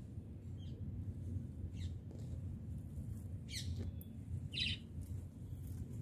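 Rose-ringed (ringneck) parakeet giving short, high chirping calls, four in a few seconds, the strongest two about halfway through, over a steady low rumble.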